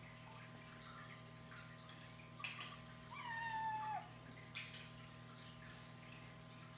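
Domestic cat meowing once: a single call about a second long that holds its pitch and drops at the end. A short knock comes just before it and another just after.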